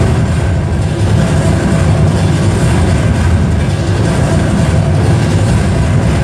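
Vietnamese festival drums (trống hội) beaten by a troupe of drummers in a fast, unbroken roll, a loud, dense, steady low rumble.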